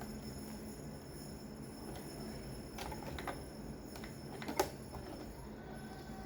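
A few light clicks and knocks of handling at a sewing machine, the loudest about four and a half seconds in, over a steady low hum.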